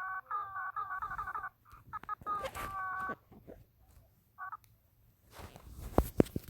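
Stomach growling: a high, warbling, squeal-like gurgle in two stretches with a brief pause between, then a short squeak. Near the end come a rustle and a sharp knock, the loudest sound.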